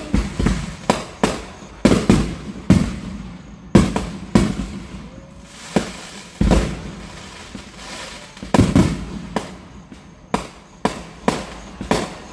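Aerial fireworks going off in a rapid string of sharp bangs, often less than a second apart, each trailing off into a rumbling echo. A heavier, deeper boom comes about six and a half seconds in.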